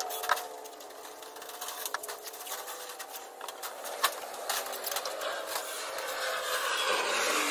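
Scattered light clicks and knocks from assembly work on a metal gazebo's roof trim, with a swell of rustling noise near the end.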